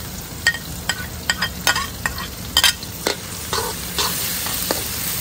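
Metal spatula scraping and clicking against a metal wok while chopped shallots, garlic and fresh red chillies fry in hot oil. The clicks come irregularly over a frying sizzle that grows louder about four seconds in.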